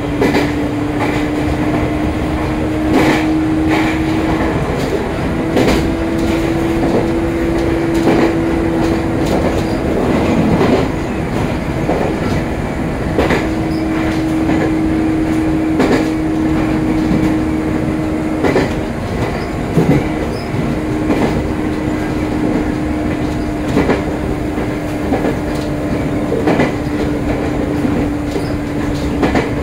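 Joshin Electric Railway electric train running, heard from inside the car: a steady motor hum that drops out briefly twice, with wheels clacking over rail joints every second or few.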